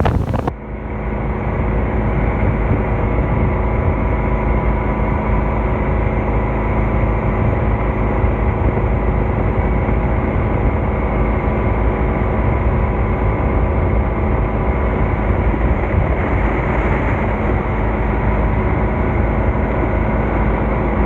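Motorboat engine running at a steady speed, with a brief dip in loudness about half a second in.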